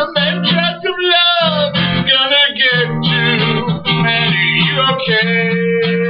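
Music: acoustic guitar strummed steadily under a melody line that bends and slides between notes, holding one long note near the end.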